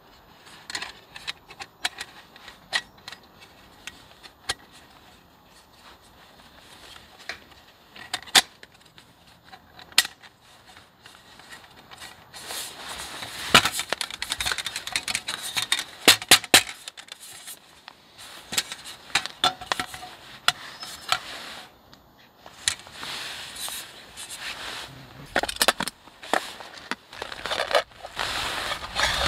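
Small folding metal camp table being assembled by hand: scattered sharp clicks and clinks as its legs and plates fit together, with stretches of rustling handling noise. Near the end a metal cook pot is handled.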